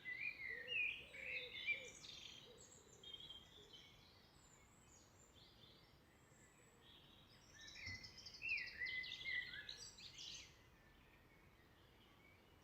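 Wild birds singing: a burst of varied, chirping song at the start and another about eight seconds in, with quieter scattered chirps between, over faint outdoor background noise.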